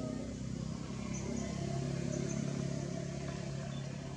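A motor vehicle's engine passing by: a low hum that swells about two seconds in and then fades.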